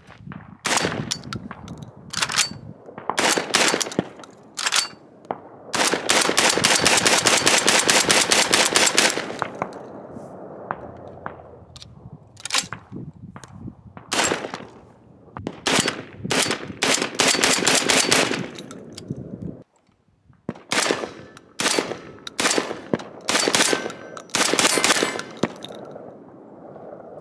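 Typhoon Defense F12 semi-automatic 12-gauge shotgun firing birdshot rapidly, shot after shot, from a 20-round drum. Loud, sharp reports with ringing tails, and about six seconds in a three-second run of very quick, closely spaced shots.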